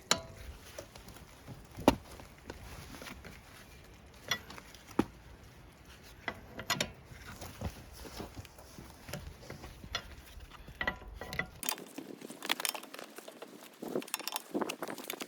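Scattered metallic clicks and single knocks of hand tools at work on a car wheel during a tyre change, growing busier near the end.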